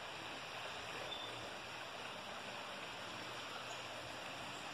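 Shallow creek running over stones, a steady even rush of water.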